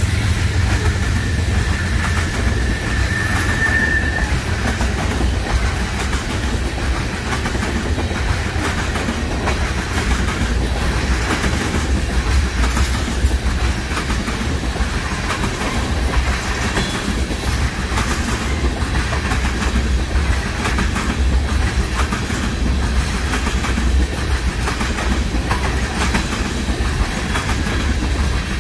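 A freight train rolling past at trackside, its cars' wheels clicking over the rail joints over a steady low rumble. A thin high squeal from the wheels comes through for a few seconds near the start.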